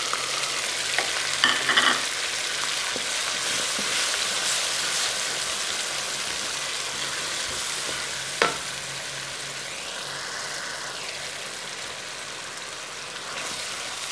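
Chopped onions sizzling in hot oil in a metal pan while being stirred with a wooden spatula. A few sharp knocks of the spatula on the pan come through, the loudest about eight seconds in, and the sizzle eases off a little in the second half.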